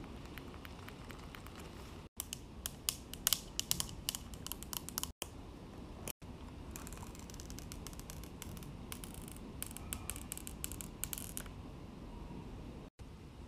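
Long acrylic fingernails tapping and clicking on an iPhone's frame and side buttons while the phone is handled. The sound comes in two runs of quick, sharp clicks, one about two seconds in and one from about seven to eleven seconds, over soft handling rustle.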